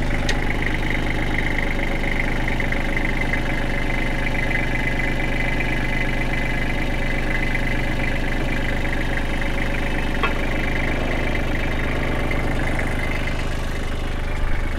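Kubota L2800's three-cylinder diesel engine running steadily while the front-end loader's bucket is curled back under hydraulic power, with a higher hum over the engine note. The hum fades over the last couple of seconds.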